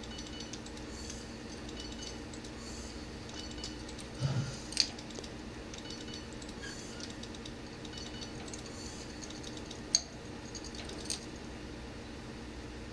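Budgie's beak and tongue ticking faintly against a plastic vertical-blind slat as it licks it: a scatter of small irregular clicks, with sharper clicks about five seconds in and about ten seconds in.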